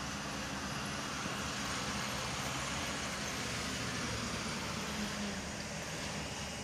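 Heavy diesel earthmoving machinery running steadily, a continuous low engine drone.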